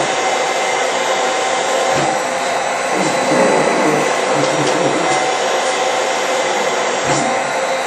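Mechanical insufflator-exsufflator (cough assist machine) blowing air steadily through a mouthpiece. It pushes an assisted breath into the lungs and draws it back out to help a person with paralysed breathing muscles cough up secretions.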